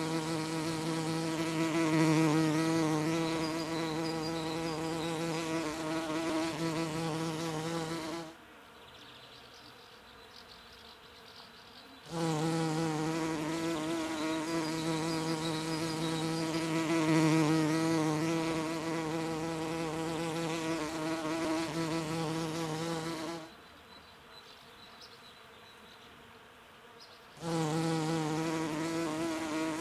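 Bee buzzing in flight: a steady, pitched buzz with a slight waver. It cuts off abruptly twice, each time for about four seconds, before starting again.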